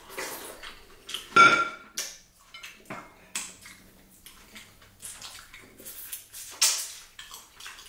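Close-up eating noises: soup slurped from a bowl, then wet lip-smacking and finger-licking in short, irregular strokes. About a second and a half in comes the loudest sound, a clink with a brief ringing tone, like a ceramic bowl set down on a plate.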